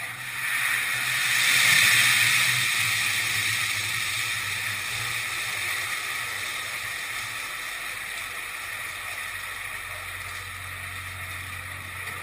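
Hot oil in a turkey fryer boiling over as a turkey is lowered into it. A loud hissing, bubbling rush rises about half a second in and peaks a second or so later as the spilled oil ignites, then slowly dies down to a steadier hiss of burning oil.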